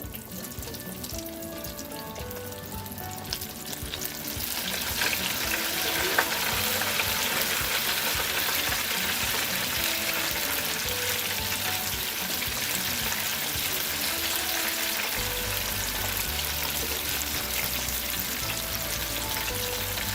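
Flour-dredged chicken wings deep-frying in oil at 375°F, a steady sizzle that swells about four seconds in as more wings go into the hot oil. Light background music plays underneath.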